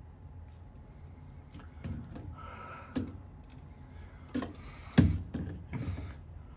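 Scattered knocks, clicks and thumps, with a sharp thump about five seconds in as the loudest.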